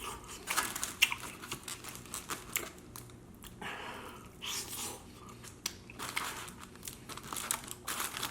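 Close-mouth chewing and smacking of chicken wings, with irregular wet clicks and crunches as the person bites and chews.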